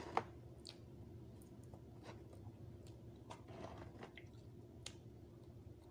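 Quiet eating sounds: scattered soft mouth clicks and chewing, a sharp click just after the start, and a brief rustle of a plastic-gloved hand picking up French fries about three and a half seconds in, over a faint steady hum.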